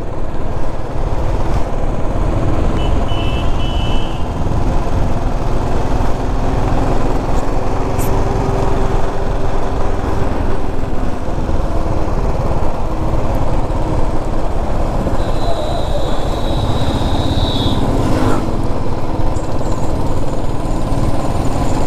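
Motorcycle being ridden on the road: steady engine and road noise under a heavy wind rush.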